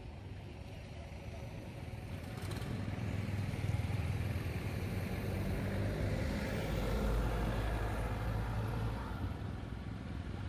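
Outdoor background noise: a low rumble that builds from about two seconds in and eases off near the end.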